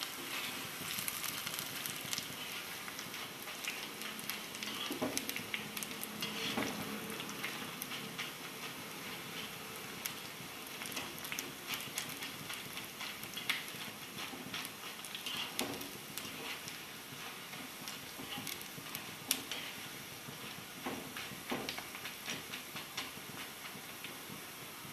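Boondi (drops of gram-flour batter) deep-frying in hot oil in a kadai: a steady sizzle full of fine crackles, the boondi still not cooked through. Now and then a wire skimmer stirring them clicks and scrapes against the pan.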